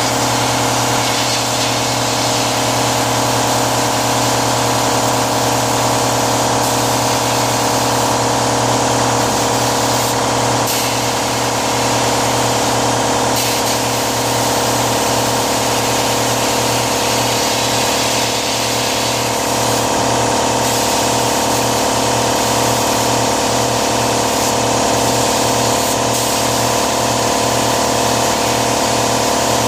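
A motor-driven machine running steadily, with a regular pulsing hum and a continuous hiss of air or spray over it.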